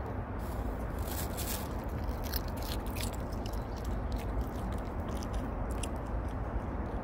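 A Maltese dog crunching and chewing pieces of raw cucumber, with irregular sharp crunches over a steady low background noise.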